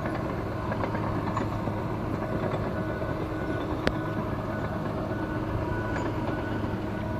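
An engine running steadily with a low, even hum, and one sharp click about four seconds in.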